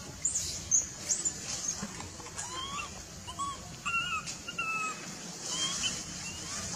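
Baby macaque crying: a run of short, high squeals that bend in pitch, about a dozen in all. The very highest come in the first second; shorter, lower ones follow in quick succession through the middle.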